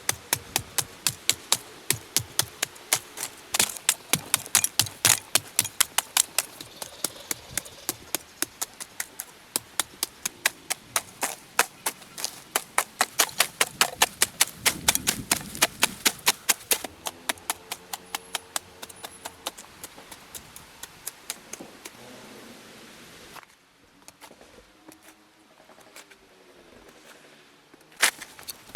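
Rapid, regular sharp knocks, about three or four a second, like a tool striking wood. They stop about 23 seconds in and start again near the end, with faint wavering calls or voices underneath.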